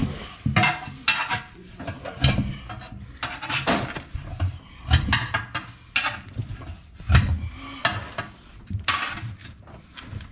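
Irregular metal clanks and knocks, one or two a second: steel tools striking and levering against a tractor wheel rim while a tire is being changed.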